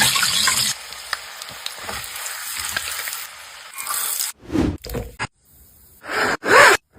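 Food sizzling and crackling as it fries in hot oil, loud for the first second and then a softer steady sizzle. Toward the end come a few separate short sounds, the loudest with a rising tone about six seconds in.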